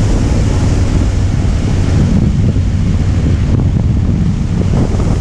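Harley-Davidson Softail Breakout V-twin with a Vance & Hines exhaust, running steadily while riding, with heavy wind buffeting on the microphone.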